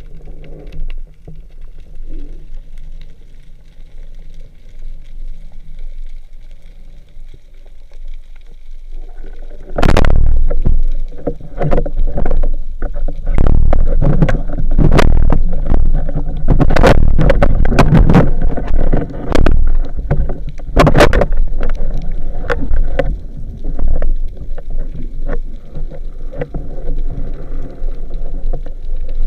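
Water sloshing and knocking around a camera in the water. About a third of the way in it turns suddenly loud, with rapid knocks and thumps that go on to the end.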